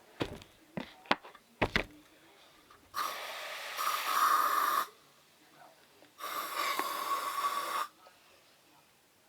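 A few light clicks of handling, then spray starch sprayed from an aerosol can in two steady hissing bursts of about two seconds each, which start and stop abruptly.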